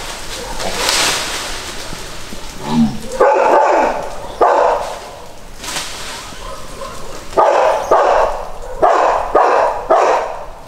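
Dog barking: a couple of barks a few seconds in, then a quicker run of barks toward the end.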